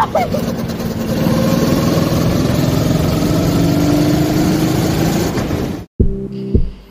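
Go-kart engine running at speed with wind noise, its note rising slowly as the kart accelerates down the straight. Near the end the engine sound cuts off abruptly and background music with plucked and keyboard notes takes over.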